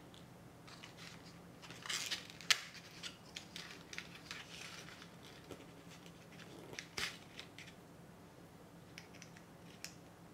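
Hands handling a small card box and its paper packaging: irregular rustling and crinkling with a few sharp clicks and taps as a wax seal stamp is taken out of its box.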